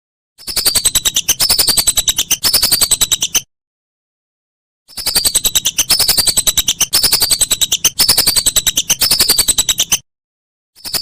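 Whistling duck (belibis) calling in runs of rapid, high whistled notes, each short phrase falling in pitch. The runs come in bouts of a few seconds that start and stop abruptly, with dead-silent gaps between them.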